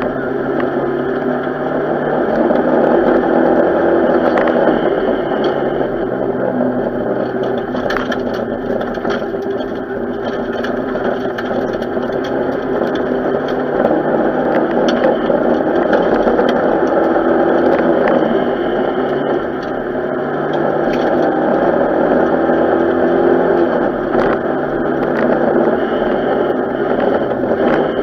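Renault 5 GT Turbo rally car's turbocharged four-cylinder engine heard from inside the cabin, running hard at stage speed. Its level swells and dips with throttle and gear changes, over scattered sharp clicks and knocks from the car on the road.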